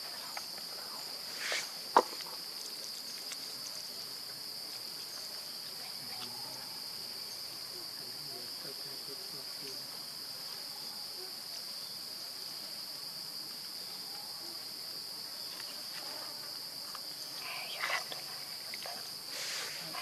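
Steady high-pitched drone of insects, with a single sharp click about two seconds in and a few short faint sounds near the end.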